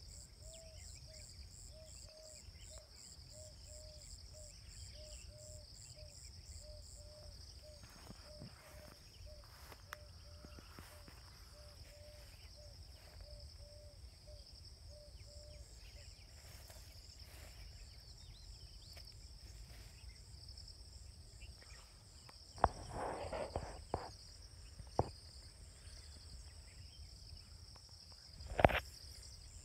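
A steady high-pitched chorus of insects, pulsing rapidly for the first several seconds. For the first half a low call repeats about twice a second. Near the end a short rustle and a few sharp knocks are the loudest sounds.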